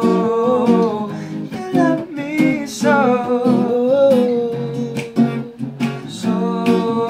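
Acoustic guitar strummed in a steady rhythm while a voice sings a gliding melody over it.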